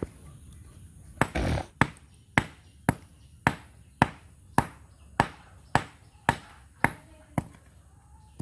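Small hammer striking a brick held in the hand, chipping at it: a dozen sharp knocks at about two a second, with a short crunch of crumbling brick around the first blows.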